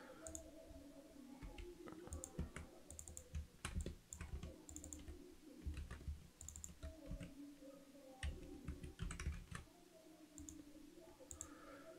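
Faint, irregular clicks of a computer mouse and keyboard being worked, over a low hum.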